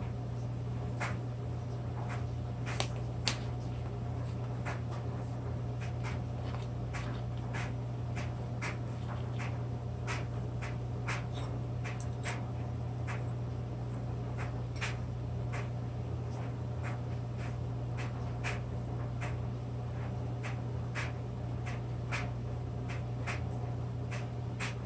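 A steady low hum, with small sharp clicks and snaps about one or two a second from graham crackers being broken into pieces and handled.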